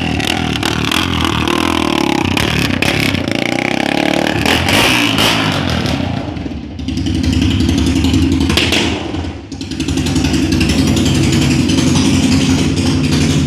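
Honda CB 300's single-cylinder four-stroke engine running loud and being revved, its pitch rising and falling, with two short drops in level about seven and nine and a half seconds in.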